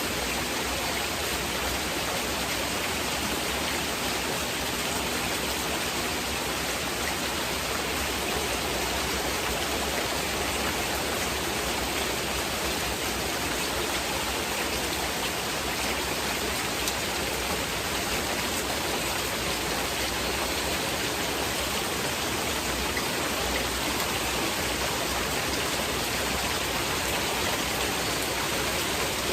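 Heavy rain falling steadily, an even rushing hiss with no pauses.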